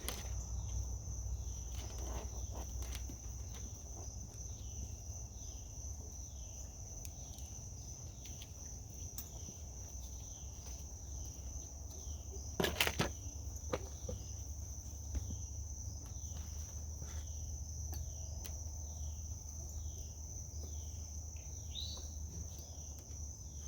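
Insects trilling steadily at a high pitch, with a short falling chirp repeating about every two-thirds of a second, over a low hum. A single sharp click comes about 13 seconds in.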